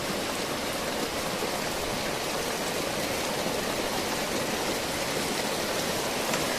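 Heavy downpour in a squally summer storm: a steady, even rushing of rain.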